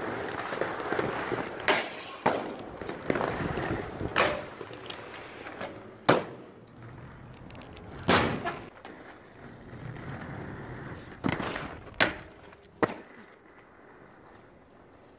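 Aggressive inline skate wheels rolling on rough concrete and asphalt with a gritty noise, broken by about eight sharp clacks of skates hitting and landing, the loudest about six seconds in. The rolling fades out near the end.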